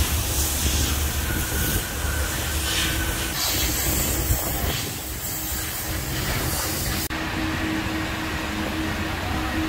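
Steady working noise of a car wash: a low rumble and a hiss, with a steady hum under it. The sound changes abruptly twice.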